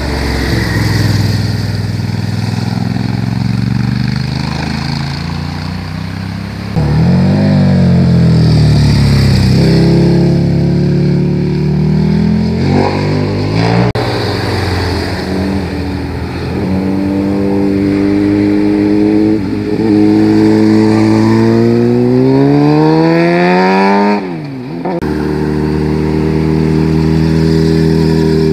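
Several motorcycle engines, one after another, accelerating and easing off through tight bends, their pitch rising and falling with the revs. The sound changes abruptly every several seconds. One long climb in revs near the end drops sharply.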